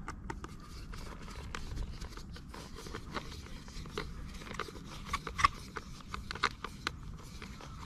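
Small screwdriver turning a screw into a plastic toy truck's chassis: a run of light, irregular clicks and scrapes of metal against plastic, over a low rumble.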